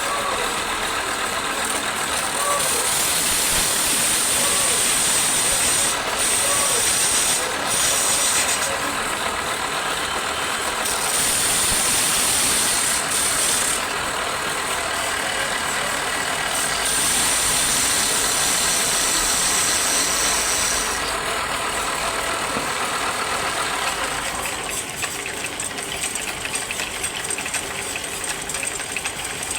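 Wood lathe running, with a hissing scrape of a tool on the spinning wood that comes and goes in stretches of a few seconds. Near the end this gives way to a fast, even rattle.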